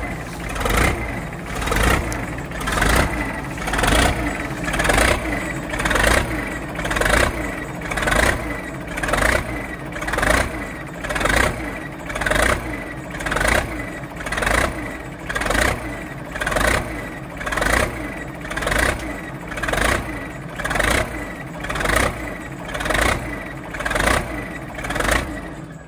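Case four-wheel-drive tractor's diesel engine running with the hood up, its sound swelling and easing in a regular beat about once a second.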